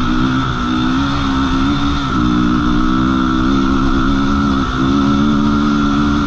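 Suzuki LTR 450 quad's single-cylinder four-stroke engine running under throttle as it drives across sand. The engine note dips briefly about two seconds in and again near five seconds, then picks back up.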